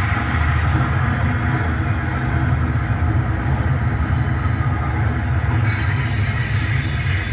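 Steady diesel locomotive running sound, low and unbroken, with a noisy rail-like layer above it: a train sound effect accompanying an HO-scale Canadian Pacific SD90/43MAC model.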